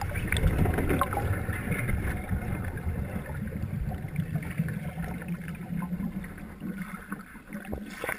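Muffled underwater sound of churned pool water around a submerged HUET training cage, heard through a submerged camera: a low rumble of moving water and bubbles with occasional faint knocks.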